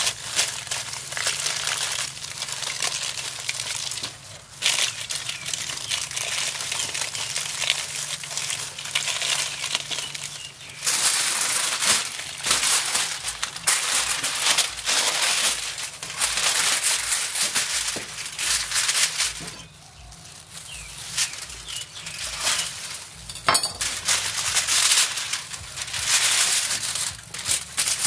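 Aluminium foil crinkling and crumpling as it is folded and pressed into a parcel by hand, in long bursts with a few short pauses.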